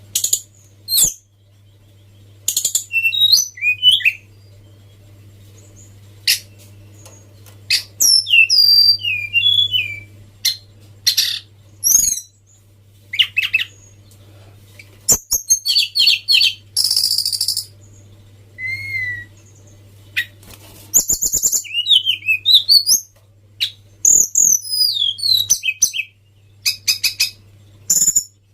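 A tledekan gunung songbird singing in short, varied phrases of chirps, sliding whistles and fast buzzy trills, with pauses between phrases, over a steady low hum.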